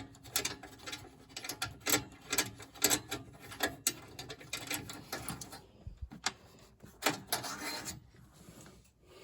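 Irregular clicks and rattles of tools and parts being handled while the flame sensor is taken out of a gas furnace. The clicking thins out after about six seconds.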